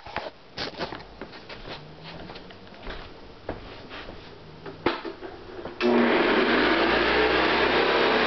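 Handling clicks and knocks, then about six seconds in a 1970s Hoover Convertible U4127 upright vacuum cleaner switches on and its motor runs steadily and loudly.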